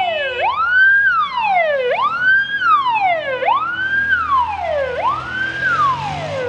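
Siren of a vintage Škoda police car in Czechoslovak VB livery, wailing up and down about every second and a half: a quick rise in pitch, then a slower fall.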